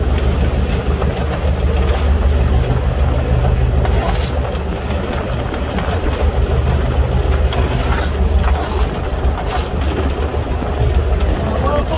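Fishing boat's engine running steadily with a low, even drone. Now and then a short scrape or rattle as a plastic scoop pushes the catch across the deck.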